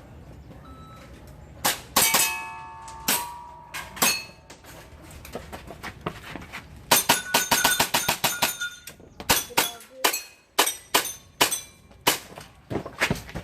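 Airsoft gun firing strings of sharp shots, with metallic clangs and rings from hits. A few spaced shots come first, then a fast string of many shots about halfway through, then more shots in pairs and singles.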